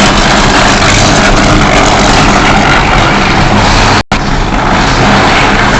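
Electric arc furnace running while melting a steel charge: a loud, steady rushing noise with a low electrical hum beneath it. The sound cuts out for a split second about four seconds in.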